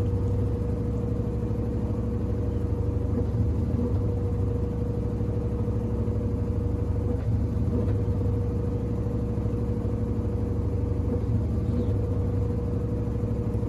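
Washing machine running, a steady low rumble with a constant hum that does not change.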